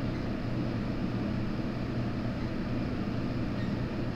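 Steady low background hum of room noise, even throughout, with no distinct knocks or clicks.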